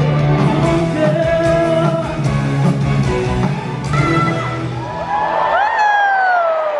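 Live rock band music with a singer and guitar; near the end a long sung note slides downward.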